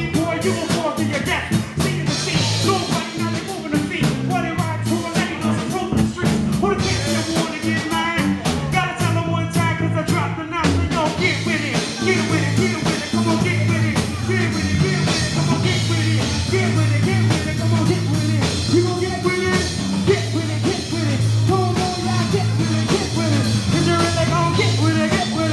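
Loud rock music with a singer over a steady beat.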